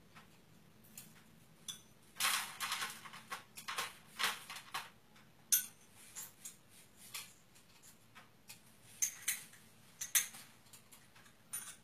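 Dried seeds being scooped with a spoon and tipped into small dishes and boxes, with light irregular clinks and rattles. It is busiest about two to five seconds in and again around nine to ten seconds in.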